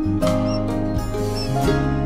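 Acoustic guitar background music with steady plucked chords. Faint, short, high peeps of newly hatched quail chicks sound a couple of times over it.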